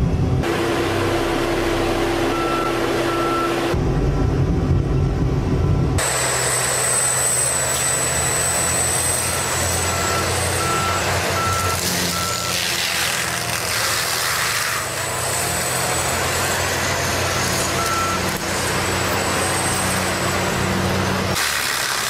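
Heavy forestry machinery working: engine and hydraulic noise from tree-felling and mulching machines, changing abruptly a few times. Short beeps at one pitch repeat in several runs. A thin high whine sounds for a few seconds after the last change.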